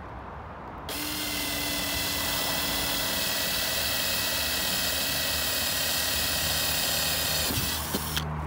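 Cordless drill running steadily as its bit bores a drainage hole through a black plastic tub. It starts about a second in and stops shortly before the end, followed by a couple of light knocks.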